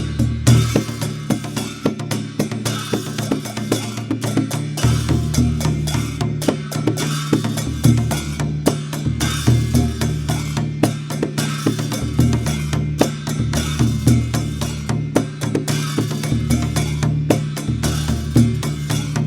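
Dhime, the Newar double-headed barrel drum, played in a steady, fast rhythm. Sharp strokes sound over a deep, ringing low tone that comes and goes in stretches.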